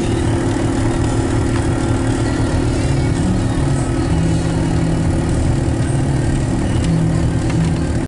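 Car engine and road noise heard from inside the cabin as the car drives along, a steady low hum whose engine note shifts in pitch a few times.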